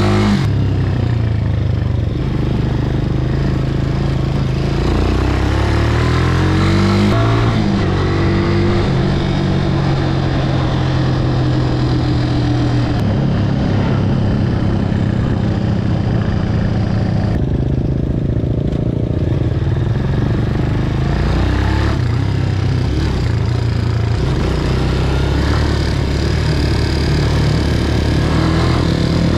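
Italika 200 cc motorcycle's single-cylinder engine running under way, its pitch climbing and dropping several times as the rider accelerates, shifts and eases off.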